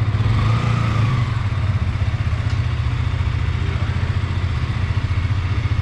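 A KTM Duke 125's single-cylinder four-stroke engine idling steadily with an even pulse, freshly started.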